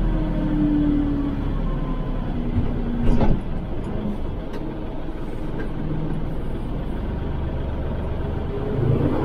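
Kubota L3560 tractor's diesel engine running steadily, with a single sharp clunk about three seconds in.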